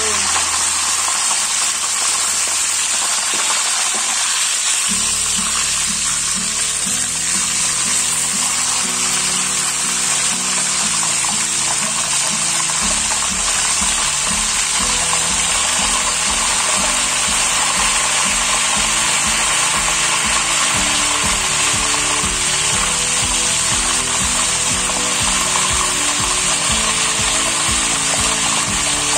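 Whole chicken frying in hot oil in a pan: a steady, loud sizzle. Background music with short changing notes plays under it from about five seconds in.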